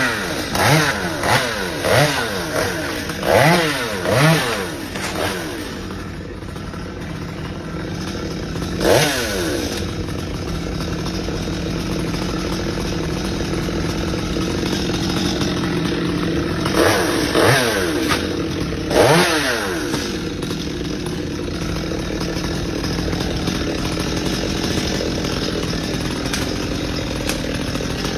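Chainsaw engine running, revved in quick bursts several times in the first few seconds and again briefly about nine seconds in and around seventeen to nineteen seconds, holding a steady run in between.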